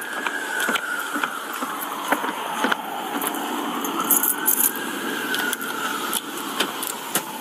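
An emergency vehicle's siren wailing in a slow rise and fall, about one cycle every five seconds. There are scattered clicks and a brief high rattle about four seconds in.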